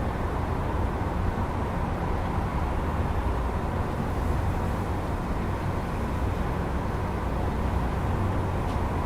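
Steady rumble of city traffic with no single vehicle standing out.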